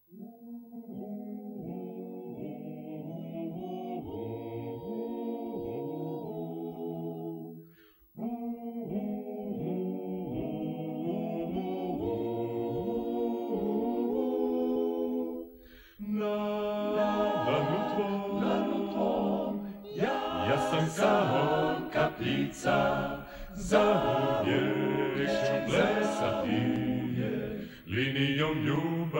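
Dalmatian klapa, a male a cappella group, singing in close multi-part harmony. The phrases break off briefly about eight and sixteen seconds in, and after the second break the singing grows louder and fuller.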